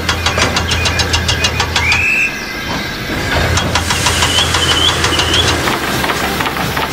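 Dubbed-in railway locomotive sound effect: a rapid, even beat of about six strokes a second over a low drone. It breaks off about two seconds in with a short high tone, then resumes about a second later with a wavering high tone above it.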